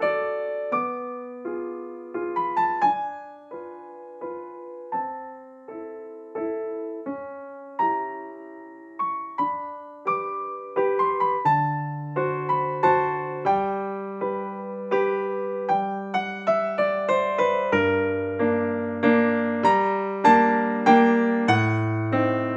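Gentle background piano music: a melody of single struck notes, each fading after it is played. Lower bass notes join after about eleven seconds, and the notes come faster in the second half.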